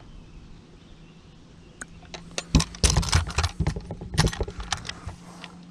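Metallic jangling and clicking of fishing gear being handled, starting about two seconds in, as a freshly caught bass is unhooked and weighed. A faint steady low hum runs under it.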